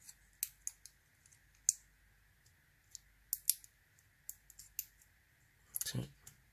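Scattered light clicks and taps from a padlock and a thin shim being handled and worked, with a quick cluster of clicks about six seconds in.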